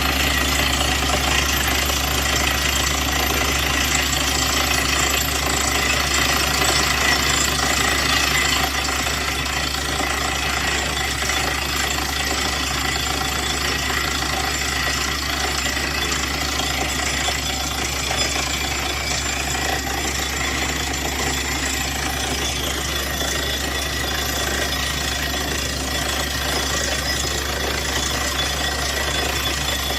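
Borewell drilling rig running steadily: a constant low engine hum under a dense, even mechanical din that does not let up.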